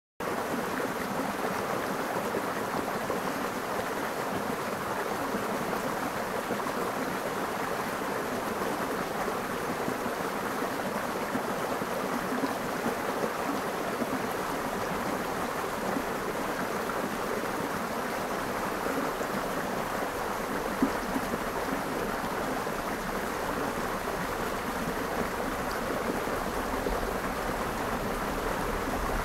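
Shallow rocky creek running over stones: a steady, even rush of flowing water.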